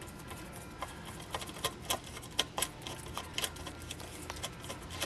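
Light, irregular clicks and taps of hand tools and small nuts being worked onto the studs on the back of a gauge cluster's printed circuit board.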